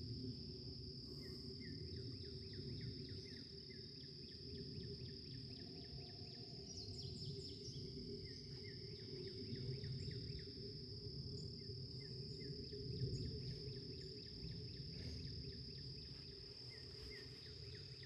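Outdoor pond-side ambience: insects give a faint, steady, high-pitched drone, while birds sing short runs of quick repeated chirps every few seconds over a low rumble of wind or background noise.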